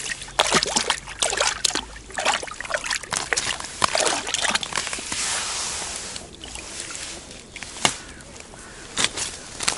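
A roach splashing and thrashing in a slushy ice-fishing hole as it is pulled up to the surface, then a few separate sharp knocks as it is handled out onto the ice.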